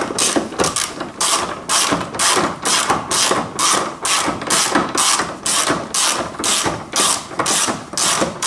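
Socket ratchet with a 10 mm socket, cranked back and forth to undo a washer fluid tank bolt, clicking in a steady train of about three strokes a second.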